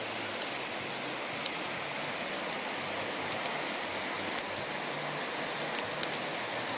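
Sausage sizzling in a frying pan on a camping gas stove: a steady frying hiss scattered with small pops and spits of fat.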